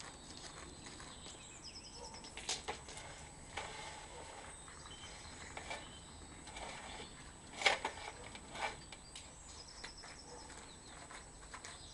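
Faint scattered clicks and knocks from the drain-survey camera rig being reeled back, the loudest pair about two thirds of the way in, over a steady thin high whine. Short high chirps come near the start and again near the end.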